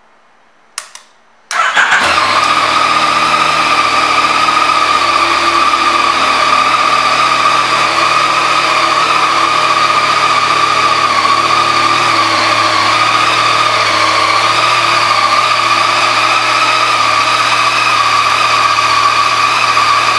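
2015 Yamaha FJ-09's 847 cc inline three-cylinder engine being started: a brief click about a second in, then the engine catches at once and settles into a steady idle.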